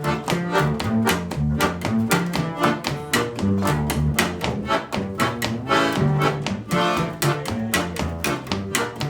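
Instrumental band music with a quick, steady beat, a moving bass line and string instruments, with no singing.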